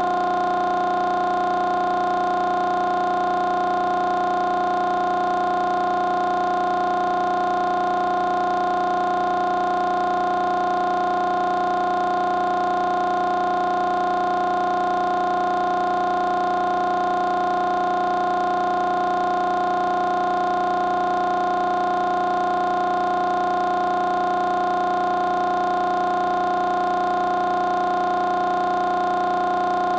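A steady drone of several held tones sounding together, unchanging in pitch and loudness.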